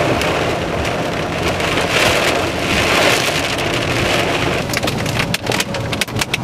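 Heavy wind-driven rain on a moving car, heard from inside over the road noise. From about five seconds in, a rapid rattle of sharp hits sets in: hailstones striking the car's roof and glass.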